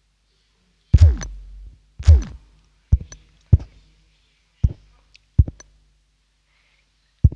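Scattered electronic drum hits: two deep booms whose pitch drops steeply, about a second apart, then five shorter thumps at uneven intervals, with silence between them.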